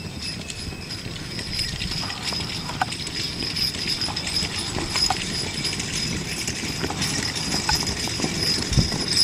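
Horse's hooves clip-clopping on a paved road as it pulls a buggy, growing louder as it comes closer.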